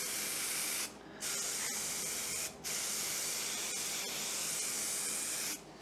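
Aerosol can of 3M Super 77 spray adhesive hissing in three passes: a short spray, another of about a second and a half, then a longer one of about three seconds that stops near the end.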